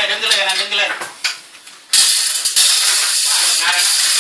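Men's voices, then about two seconds in a loud, steady rasping noise starts abruptly: a hand chain hoist ratcheting as it lifts a stripped V8 engine block.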